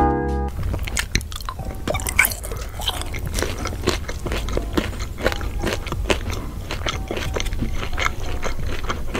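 Close-up chewing of a mouthful of food: a dense, uneven run of small wet clicks and smacks over a low steady hum. A piano tune cuts off about half a second in.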